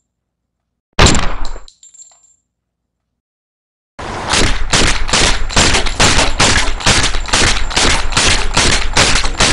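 Shots from a wooden blowback rubber band pistol: a single sharp bang about a second in with a short ringing tail, then from about four seconds a rapid string of shots, about three a second, as it fires in quick succession.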